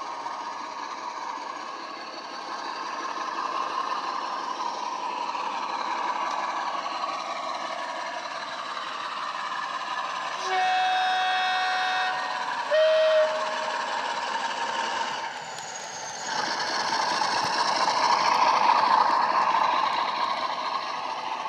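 Sound decoder in a model Class 47 diesel locomotive playing its Sulzer V12 engine sound through the model's small speaker, the engine running steadily. About halfway it sounds the two-tone horn, a longer high note and then a short lower one, and the engine sound gets louder as the locomotive passes close.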